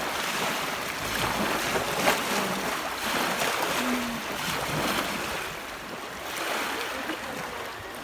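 Small lake waves washing and lapping onto a pebble-and-sand shore, a steady rushing wash that swells and eases. A single sharp click about two seconds in.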